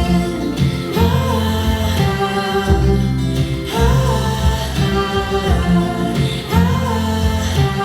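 A song playing: a sung melody over a guitar and a repeating bass line, played back over speakers in a room for a test of its acoustics.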